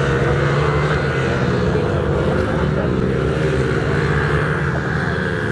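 Several mini motocross bike engines running on the track at once, their pitch rising and falling as the riders throttle on and off.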